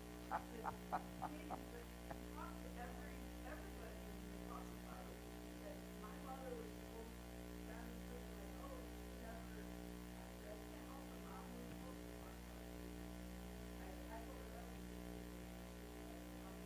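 Steady electrical mains hum on the recording. About a second in comes a quick run of five or six short, sharp sounds, and faint, indistinct sounds follow.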